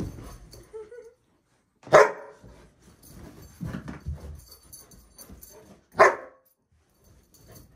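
Young golden retriever barking twice, about four seconds apart, with quieter rustling and shuffling between the barks.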